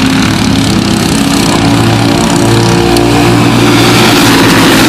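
Four-stroke Briggs & Stratton Animal kart engines of a racing field running on track, their pitch stepping up and down as the karts accelerate and pass, growing a little louder near the end.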